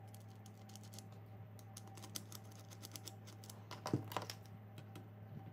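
Small metal parts of an angle-grinder chainsaw attachment being handled and fitted: many light clicks and taps, with one sharper knock about four seconds in.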